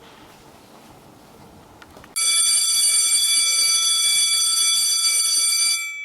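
A loud, steady bell-like chime tone starts suddenly about two seconds in, holds for about three and a half seconds, then dies away in a ringing tail. It is a closing sound effect added after the lesson's sign-off.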